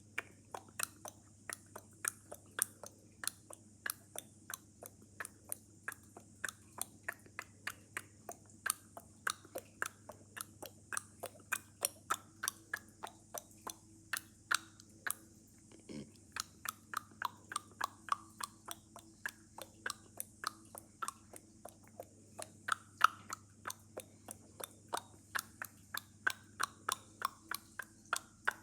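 A person making a long run of sharp clicking noises, about two to three clicks a second, each with a short pitched ring.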